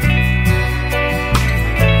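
Background music: a country-style tune with guitar.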